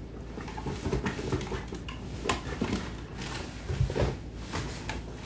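Handling noise: scattered light clicks and knocks, with a few dull thuds, as dental instruments and small objects are picked up and moved about on a work surface.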